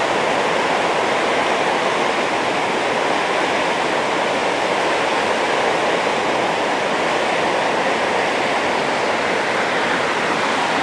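The Genesee River's Lower Falls, a large river waterfall, pouring over its ledge in a loud, steady rush of falling water.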